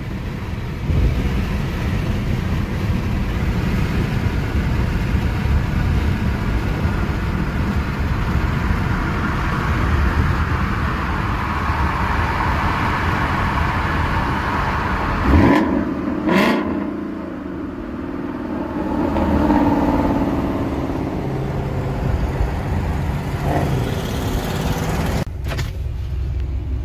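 Ford Mustang GT's V8 exhaust running hard under acceleration and revving, heard from a car close behind and alongside. There is a sharp crack about fifteen seconds in.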